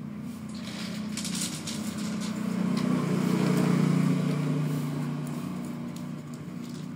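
A motor vehicle's low engine hum, swelling to its loudest about halfway through and then fading as it passes. Soft rustling is heard about a second in.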